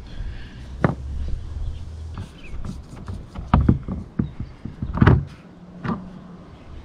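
Screwdriver clicking and scraping against the screws and plastic of an RV refrigerator vent cover, with a few sharp clicks and fainter scrapes between them. Under it runs a low steady rumble that stops about five seconds in.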